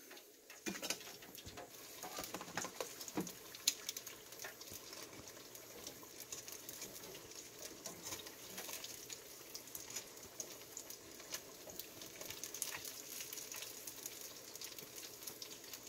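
Battered fish sizzling in the hot oil of an electric countertop deep fryer: a steady frying hiss with scattered sharp pops and crackles.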